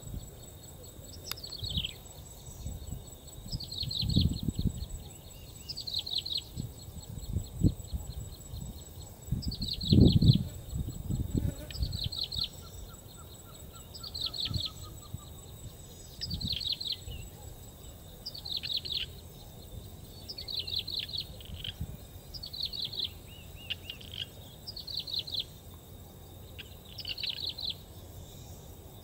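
A prinia singing: a short phrase of quick, downward-sliding high notes, repeated every two seconds or so. Low thumps come and go underneath, the loudest about ten seconds in.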